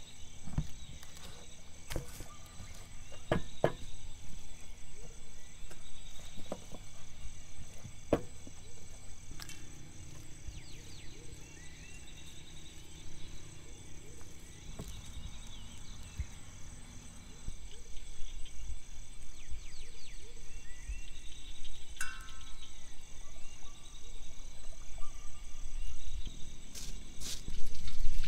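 A steady, pulsing insect chorus of crickets from the rice fields, with scattered clicks and scrapes of hands and a wooden spatula working minced chicken and prawn in a steel bowl and setting patties on a wire rack. Near the end, oil pours into a wok and the sound grows louder.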